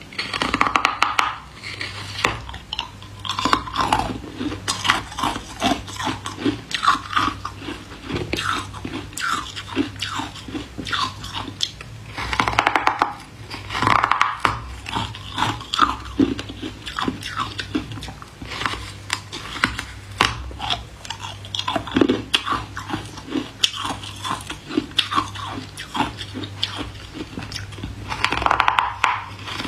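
A solid block of hard ice bitten and chewed: loud crunching bites near the start, about halfway through and near the end, with rapid crackling of ice fragments being chewed between them.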